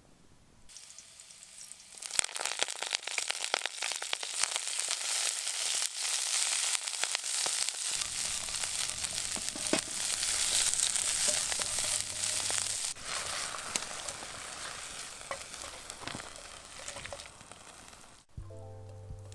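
Food frying in hot oil in a pan: a dense sizzle with many small crackles, starting about two seconds in and easing off before it cuts off near the end, where background music comes in.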